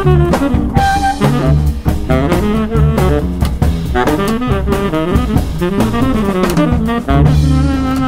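Avant-garde jazz trio of tenor saxophone, plucked double bass and drum kit playing together. The tenor saxophone carries busy, shifting lines over walking low bass notes and frequent drum and cymbal strokes.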